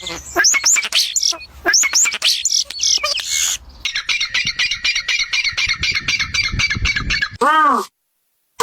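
Birds calling: a string of sharp, quickly rising squawks, then a fast chattering run of calls, and one short pitched call near the end that cuts off suddenly.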